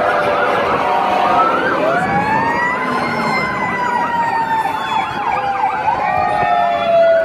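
Several fire engine and emergency vehicle sirens sounding at once, overlapping wails and fast yelps, with one long tone slowly falling in pitch through the second half.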